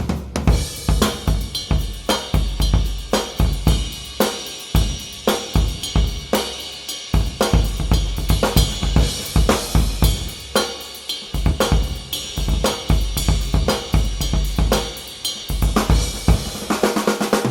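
Vintage Gope acrylic drum kit played as a groove with fills: bass drum, toms, a 1970s Pinguim aluminium snare, and Paiste 505 hi-hats, ride and crash cymbals.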